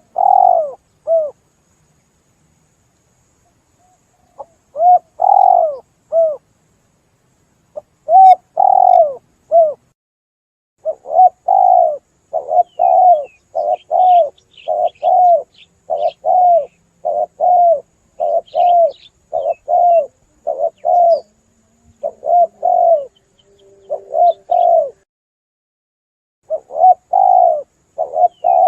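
Spotted doves cooing, a lure-call recording: short groups of coos at first, then after a pause a long run of more than a dozen coos in quick succession. Faint high chirps of another small bird are heard in the middle.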